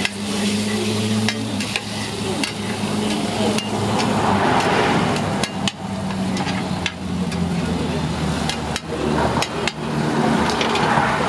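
Metal spatula scraping and clacking against a flat steel griddle in irregular sharp strikes, over the sizzle of pork slices, garlic and eggs frying. A steady low hum runs underneath.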